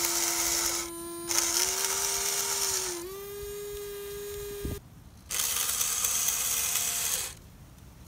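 Small electric motors of a custom RC fire truck whirring. The water pump gives a steady whine that shifts up slightly in pitch and cuts off with a thump about four and a half seconds in. A harsher gear whirr starts and stops three times over it.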